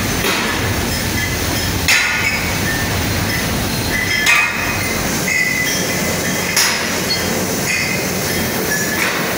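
Steady loud machinery noise in a foundry shop, broken by sharp ringing metallic clanks about every second or two as metal strikes the cast-metal fittings.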